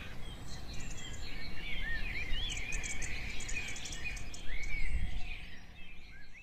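Small birds chirping and twittering in quick, rising and falling notes, over a busy background of insect-like clicking and a low rumble that swells briefly near the end.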